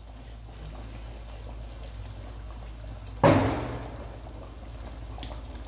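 Thick chicken curry gravy boiling in a pot, bubbling faintly. About three seconds in comes one sudden, much louder wet sound that fades over about a second.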